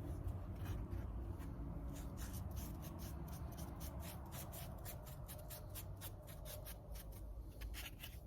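Quick scratchy strokes spreading end-grain sealer onto sawn Southern Yellow Pine boards, a few strokes a second from about two seconds in, over a low steady rumble.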